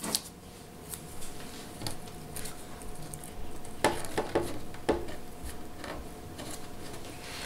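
Fingers pressing and smoothing masking tape onto a wooden guitar top: scattered small clicks and rustles, a few in quick succession about four seconds in.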